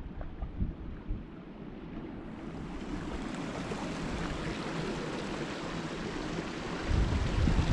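Water spilling over a low concrete weir, a steady rushing that swells from about two seconds in. Wind buffets the microphone in the first second and again near the end.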